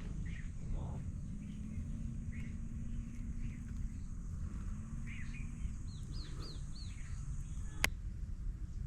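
Wild birds chirping in short scattered calls, including a run of four quick downward chirps about six seconds in, over a steady low rumble and a faint steady high hiss. A single sharp click sounds near the end.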